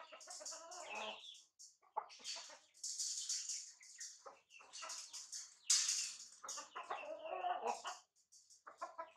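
Chickens clucking in short runs of pitched notes, with sharp, high, scratchy bursts in between.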